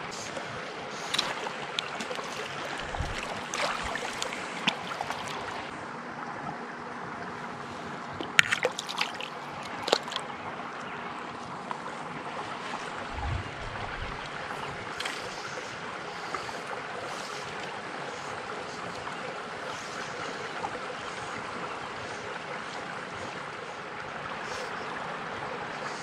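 Steady outdoor hiss of open air and water, broken by scattered sharp clicks, a few louder ones about 8 to 10 seconds in, and two brief low thumps.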